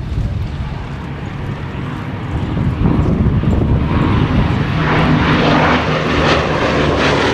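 Bristol Blenheim's twin Bristol Mercury radial engines running, growing louder about three seconds in as the aircraft comes closer.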